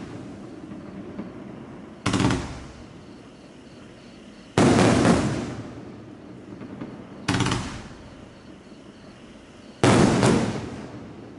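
2-inch, 25-shot consumer fireworks cake firing its shells one after another: four loud bursts about every two and a half seconds, each starting sharply and fading over about a second.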